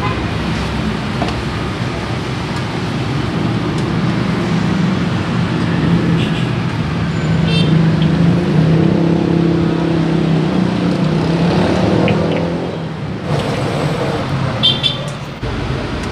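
Road traffic: vehicle engines running past with a steady low hum, and a few short high ticks. The hum drops away about thirteen seconds in.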